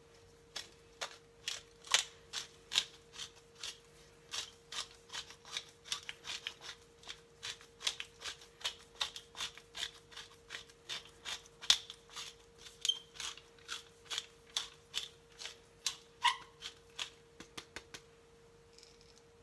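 Wooden pepper mill being twisted, grinding peppercorns in a long run of sharp clicks, about two to three a second, that stops near the end.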